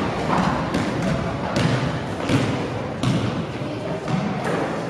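A basketball being dribbled on a hardwood gym floor: about five dull thumps at uneven spacing over a general court hubbub.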